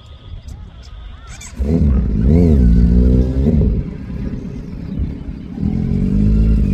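Kawasaki Z900's inline-four engine revving up and down in quick throttle blips about two seconds in, dropping back lower, then held at a steady higher rev near the end.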